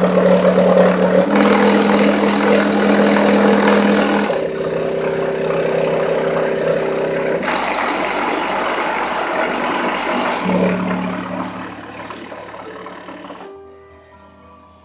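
Bare car-audio subwoofer driver, unboxed in free air and driven by an amplifier, playing bass-heavy music: long held bass notes that change every few seconds, fading out near the end.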